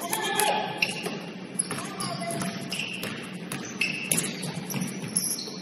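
Basketball being played on an indoor court: the ball bouncing and sharp sneaker squeaks, with players' voices calling out.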